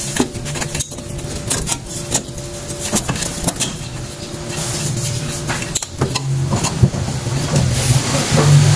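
Light metallic clicks and clinks as coiled springs and hardware are handled on a drum-brake backing plate, over a steady low hum that grows louder near the end.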